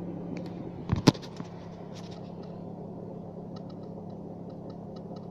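Skoda Fabia 2's 1.6 engine idling in neutral with a steady hum from the manual gearbox and faint ticking later on. The noise disappears when the clutch is pressed, which the owner takes as a sign that the gearbox bearings and shafts are failing. Two sharp clicks about a second in.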